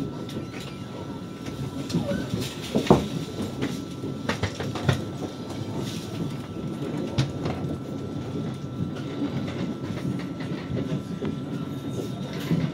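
Running noise of a Lastochka (Siemens Desiro RUS) electric train heard from inside the carriage: a steady rumble of wheels on rail with a faint steady whine. A run of sharp clacks from the wheels crossing the track comes about two to five seconds in, the loudest about three seconds in.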